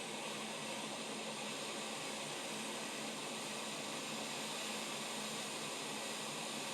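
Hot-air rework station blowing a steady hiss of air as the replacement BQ charging chip is soldered onto the laptop board.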